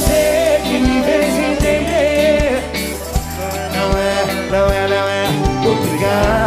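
Sertanejo band music playing live, with a steady kick-drum beat about every 0.8 seconds under a wavering melody line.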